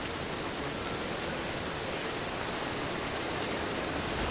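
Steady rain falling, an even hiss with no individual drops standing out.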